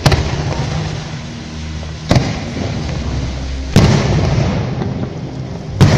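Aerial firework shells bursting: four sharp booms about two seconds apart, the last two the loudest, with a steady crackling from the bursting stars between them.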